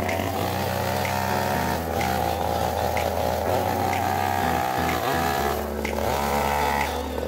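Stihl two-stroke chainsaw running and cutting into a large wooden log, its engine note shifting up and down as the bar loads in the cut.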